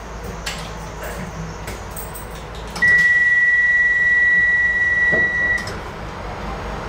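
A single steady high-pitched beep lasting about three seconds, starting about three seconds in: the door-closing warning tone of a Docklands Light Railway train at a station stop.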